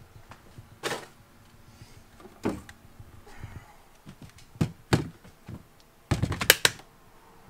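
Handling of hard plastic Ryobi 18V tool gear: scattered single knocks and clicks as a battery is taken up. About six seconds in there is a louder quick run of clacks as the impact wrench is pressed down onto its battery.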